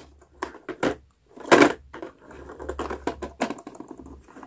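Clicks and knocks of a hard plastic toy bus being handled and turned over on a tabletop while its on/off switch underneath is worked, the loudest knock about a second and a half in.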